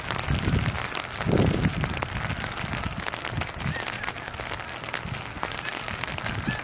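Hard rain pattering on an umbrella, with wind gusting on the phone's microphone, strongest near the start and about a second and a half in. Faint honking of geese flying over comes through now and then.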